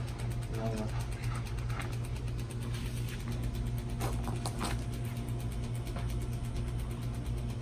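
A steady low mechanical hum, with a few faint clicks about four seconds in.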